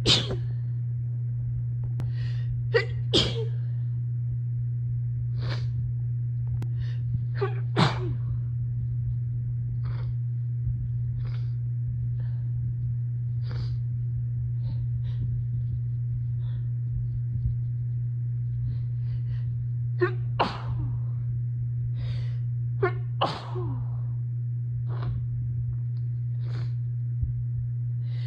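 A person sneezing again and again: a long string of short, sudden sneezes, some sharp and loud and some smaller, set off by dust from packing. A steady low hum sits underneath.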